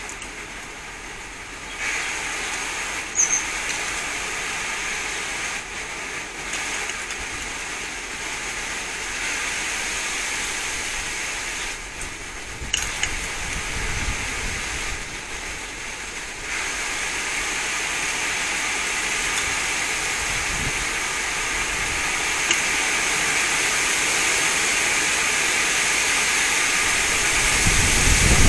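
Wind blowing through garden trees and shrubs: a steady rushing hiss of leaves, with gusts buffeting the microphone, strongest near the end.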